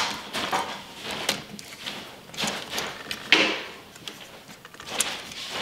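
Screwdriver working the terminal screws of a plastic thermostat while stiff wires are pushed and handled against it: short, irregular scrapes and clicks, the loudest a little past three seconds in.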